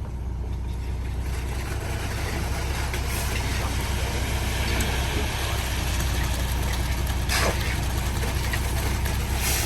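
A truck's engine idling steadily, with two brief hisses in the last few seconds.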